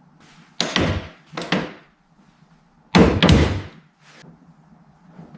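A series of door-like slams: four sharp hits, each with a short fading ring, about a second apart. The third is the loudest and the last is faint.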